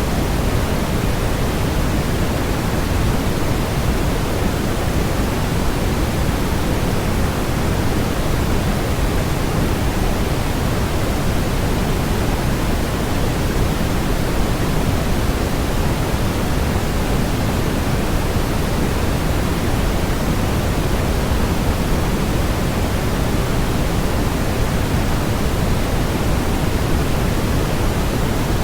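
Synthetic white noise: a steady, unchanging hiss, heavier in the low end than the high.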